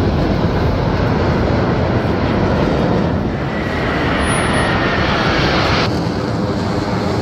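Jet roar from Black Eagles T-50B jets flying overhead in formation, a steady loud rush. Around the middle a faint whine falls slightly in pitch, and the sound changes abruptly near the end.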